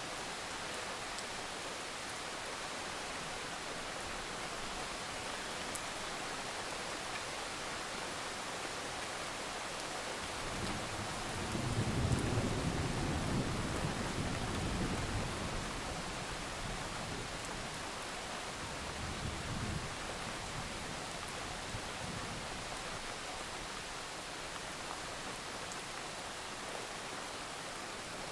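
Steady rain falling, with a low roll of thunder rumbling up about ten seconds in, peaking a few seconds later and fading, and a weaker rumble a few seconds after that.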